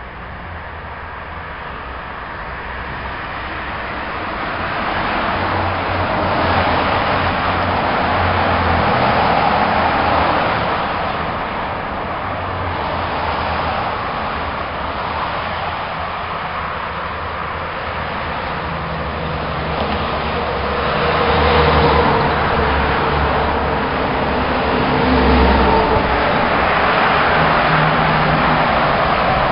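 Motor vehicle noise: engines running with traffic noise that swells and fades several times.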